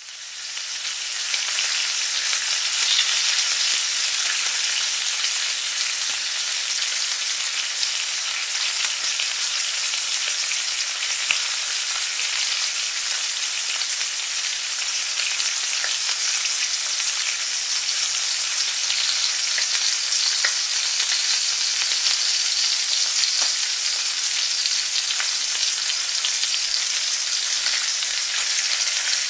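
Food frying in a pan, a steady sizzle with fine crackles and pops, fading in over the first second or two.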